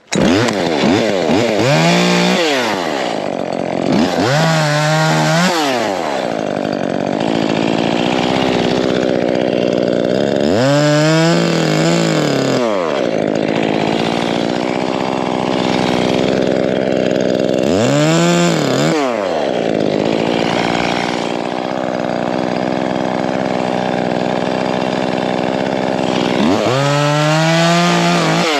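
Chainsaw running, revved up and let back down about five times, with long stretches of steady high-speed running in between as it cuts wood.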